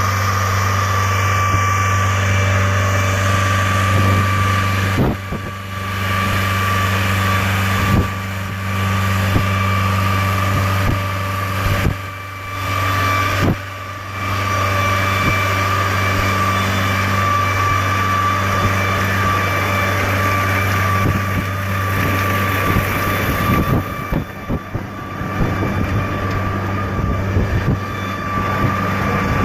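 Diesel engine of a 2009 Screen USA Tornado Star 4008 mobile screening plant running steadily, a low hum with a thin higher whine over it, dipping briefly a few times.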